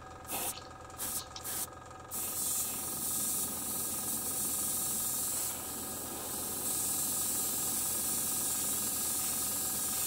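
Gravity-feed airbrush spraying: a few short bursts of hiss in the first two seconds, then a steady spray hiss.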